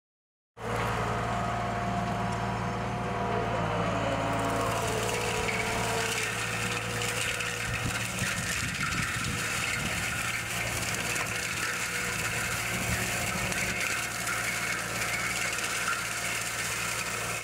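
Skid-steer loader's engine running steadily under load while its front-mounted forestry mulcher shreds brush: a steady engine hum under a dense hiss of chipping wood that grows fuller about four seconds in.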